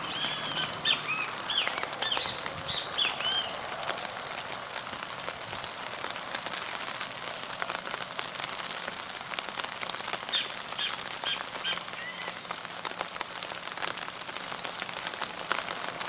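Steady patter and trickle of shallow water, a dense run of tiny drips and splashes. Birds chirp over it in short arched notes, in clusters in the first few seconds, again about ten to thirteen seconds in, and near the end.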